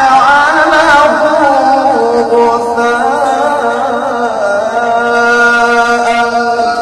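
A man's voice reciting the Qur'an in melodic tilawah style. The voice winds through ornamented turns at first, then settles into one long held note from about two seconds in.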